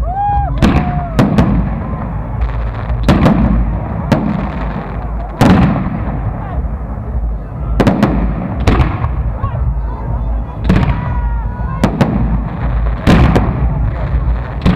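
Fireworks display: aerial shells banging overhead, more than a dozen sharp reports at uneven intervals, some in quick pairs, over a constant low rumble.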